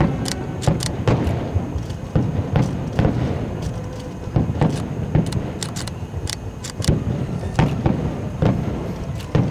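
Fireworks exploding in quick succession: a dense run of booms and sharp bangs, a few every second, over a continuous low rumble.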